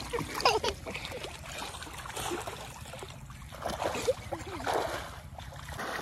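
Shallow water in an irrigation channel splashing in short bursts as children play in it, over a steady low rumble.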